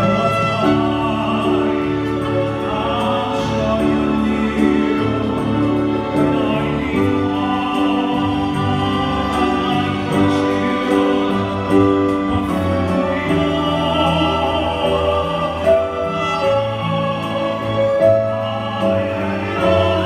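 A man singing into a handheld microphone, amplified through a PA sound system, holding long sustained notes.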